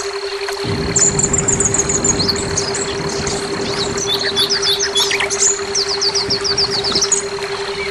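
Orange-headed thrush singing: quick high chirps and trills, with a run of about eight rapid falling notes near the middle. Underneath runs a steady low hum and a low rumble.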